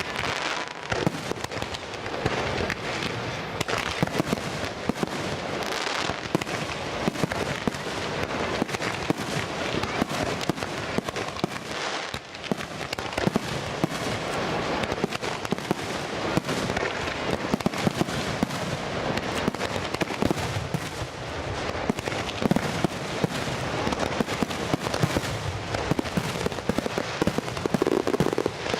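Aerial fireworks going off in a dense, continuous barrage: many overlapping bangs and crackles with no pause.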